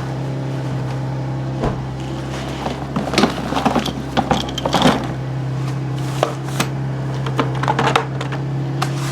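A steady low machine hum runs throughout, with scattered clinks and knocks of tools and objects being handled and moved about, busiest a few seconds in.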